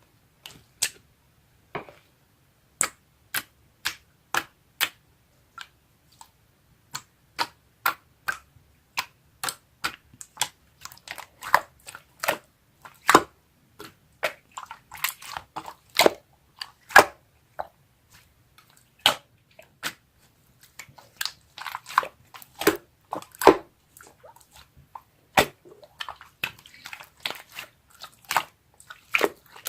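Slime being pressed and worked by hand, giving irregular sharp clicks and pops of trapped air. The pops are sparse at first and come thicker after about ten seconds, some running together into short crackling clusters.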